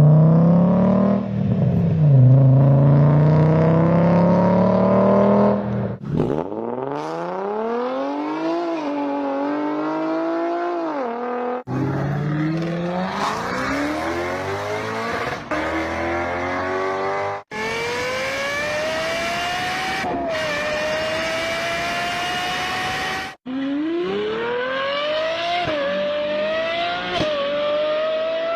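Car engines accelerating hard in five short clips one after another, each cut off abruptly; in each the engine note climbs in pitch, with brief dips like gear changes.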